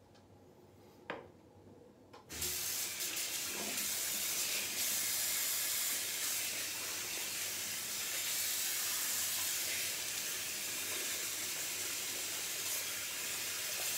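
Sink tap turned on about two seconds in, running water steadily while lather is rinsed out of a badger shaving brush under it. A short click comes just before the water starts.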